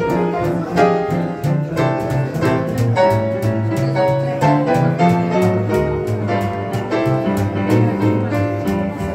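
Piano and double bass playing an instrumental passage with a steady beat, the bass moving through low notes.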